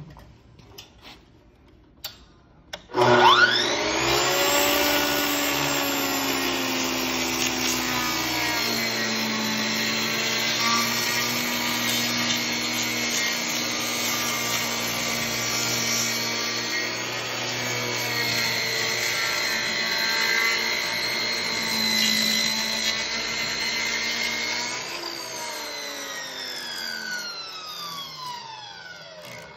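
Mafell ZK 115 Ec cutter motor starting about three seconds in and spinning up to a steady whine, then cutting across four timber beams 2 inches deep to form tenons. Near the end it is switched off and winds down, its pitch falling.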